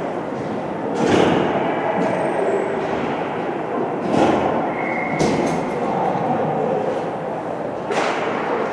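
Steady rumbling noise of game play in a sports arena, broken by four sharp knocks about one, four, five and eight seconds in, and a brief high squeak about five seconds in.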